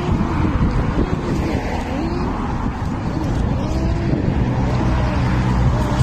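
Steady low vehicle rumble with an engine-like hum that settles in about two-thirds of the way through.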